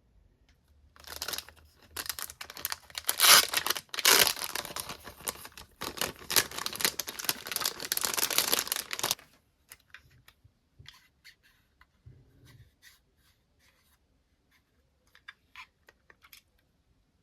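Parcel packaging being torn open and crinkled, with dense tearing and rustling for about eight seconds, then a few light rustles and clicks.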